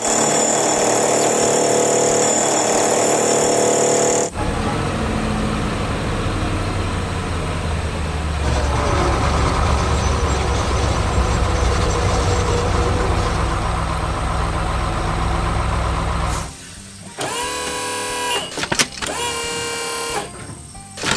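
Heavy-vehicle sounds. A loud hiss of air lasts about four seconds, then a diesel engine runs steadily. Near the end come several short pitched tones that bend in pitch.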